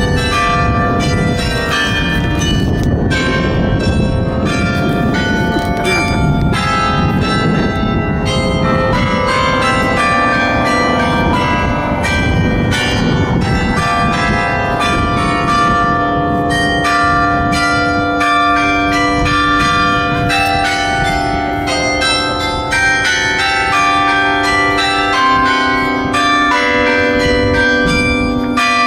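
Bells of the Clérigos Tower ringing a quick run of tuned notes, one struck note after another, each ringing on into the next. A low rumble sits beneath them for the first half.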